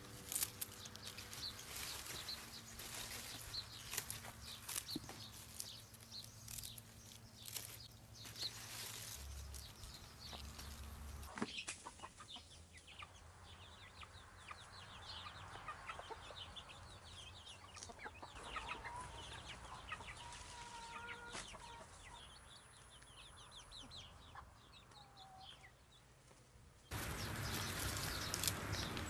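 Chickens clucking softly as they peck, with small birds chirping and a few brief calls. Near the end the background gets louder and noisier.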